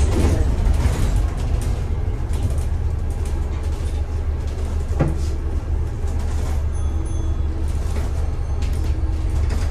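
Ride noise inside a moving bus: a steady low engine and road rumble. There is a single knock about halfway through and a few brief high beeps later on.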